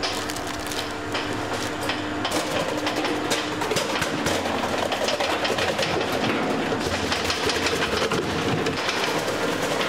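Electric stainless-steel kitchen machine running, with a steady motor hum under a fast, continuous rattling clatter.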